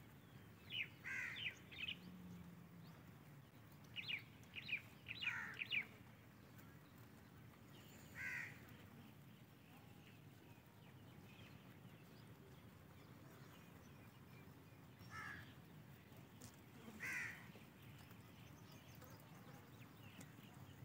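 Harsh bird calls over a faint outdoor background: quick runs of four or five calls about one and four seconds in, then single calls now and then.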